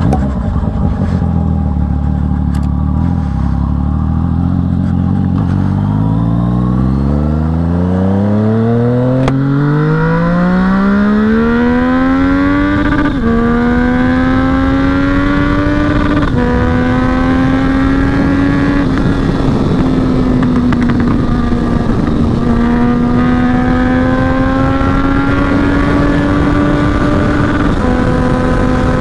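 Yamaha MT-09 inline three-cylinder motorcycle engine running at low revs, then accelerating with a long rise in pitch over several seconds. It then shifts up several times, each shift a quick small drop in pitch, and holds high revs in between.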